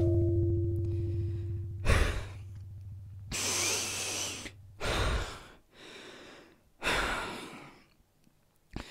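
Heavy, ragged human breathing after a struggle: four loud breaths and sighs a second or two apart, one long one a little after three seconds in. A low humming tone fades away over the first three seconds.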